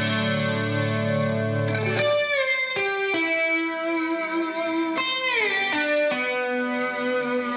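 Closing music on electric guitar played through effects: sustained notes that slide down in pitch about two seconds in and again about five seconds in.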